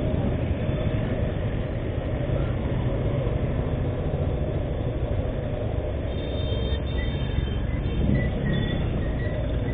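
Motorcycle riding slowly through congested street traffic: a steady low engine and road noise from the bike carrying the camera, with the traffic around it.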